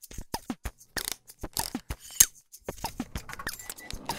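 Title-animation sound effects: a quick, uneven string of sharp clicks and short blips that fall in pitch.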